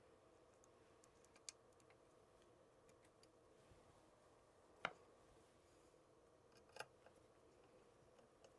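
Near silence with a few small clicks, the sharpest about five seconds in, as a screw and screwdriver work against the trim band on a KitchenAid stand mixer's head.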